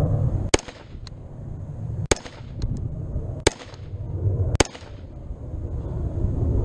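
Springfield Saint Edge AR-15 rifle firing 5.56 rounds: four sharp shots about a second to a second and a half apart, each with a short ringing tail, with three fainter cracks between them.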